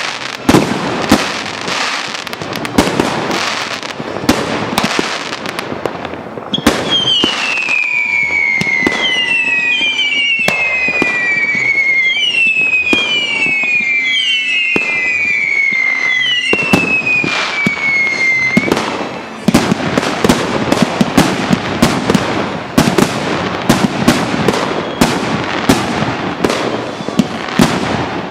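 Fireworks going off in a dense stream of bangs and crackling. About six seconds in comes a run of whistling fireworks, several overlapping, each whistle falling in pitch for a second or two. After that the bangs and crackle take over again.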